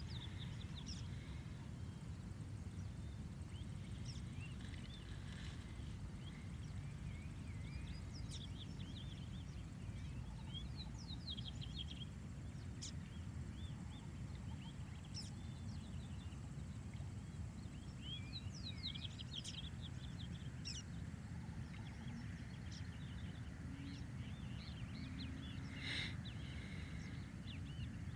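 Small birds chirping in short, scattered bursts of quick high calls over a steady low rumble. A faint thin high whine stops about three quarters of the way through, and a single sharp knock comes near the end.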